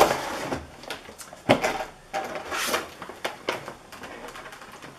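Clear plastic blister packaging crinkling and rustling as it is handled and opened, with a few sharp clicks, the loudest a snap about a second and a half in.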